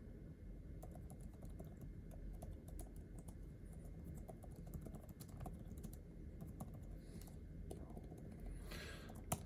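Faint, irregular clicking of keys and the trackpad on an Apple Magic Keyboard for the 12.9-inch iPad Pro, with one sharper click near the end.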